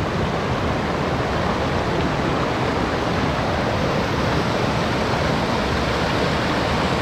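River water rushing steadily past a pool, a constant even rush with no breaks.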